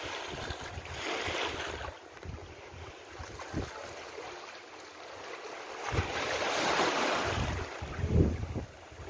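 Small waves washing against a rocky shore, swelling twice, with wind gusts rumbling on the microphone, the strongest near the end.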